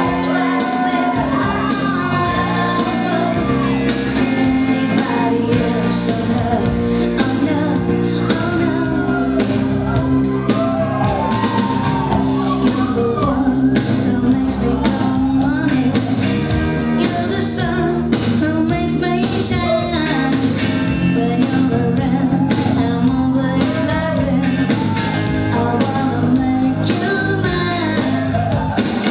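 A song with a singing voice over a steady beat and bass line.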